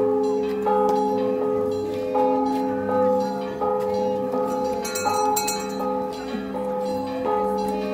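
Church bells ringing, struck over and over at a steady pace of about one strike every three-quarters of a second, each stroke ringing on into the next.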